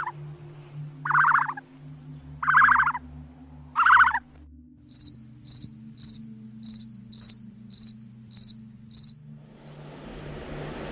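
Four buzzing calls about a second and a half apart. Then a run of short, high insect chirps, about two a second, from a grasshopper. Near the end a steady hiss from Madagascar hissing cockroaches begins.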